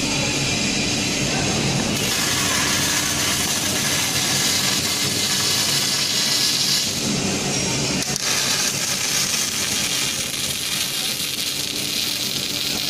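Robotic wire-fed arc welding torch laying a continuous weld, a steady hissing crackle of the arc with a faint steady hum beneath it.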